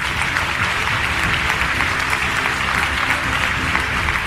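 A large seated audience applauding, a dense, steady clapping.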